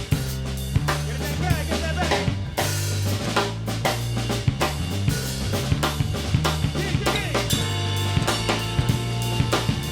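Live rock band playing an instrumental passage: a drum kit with bass drum, snare and rimshots over steady bass notes and guitar lines, some notes sliding in pitch about two to three seconds in.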